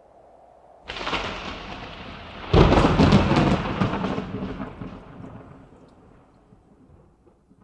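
Thunderclap: a first crack about a second in, then a much louder crash at about two and a half seconds that rumbles away over the next four seconds.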